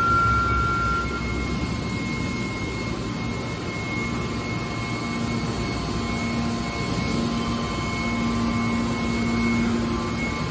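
Hydraulic scrap metal baler's power unit running steadily: a continuous machine hum with a thin high whine over it, the low hum growing stronger about halfway through.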